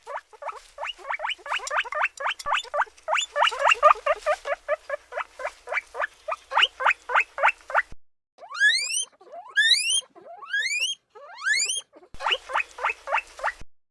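Guinea pig squeaking: a fast run of short rising squeaks, about five a second, then several longer upward-sweeping whistling wheeks, then another quick run of short squeaks near the end.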